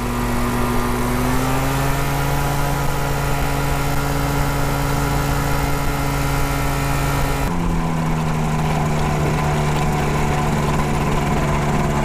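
Gyrobee ultralight gyroplane's engine and propeller running as it rolls across grass, the note rising slightly in the first couple of seconds as the throttle comes up and then holding steady. About seven and a half seconds in the sound changes suddenly: the engine note shifts and the hiss above it drops.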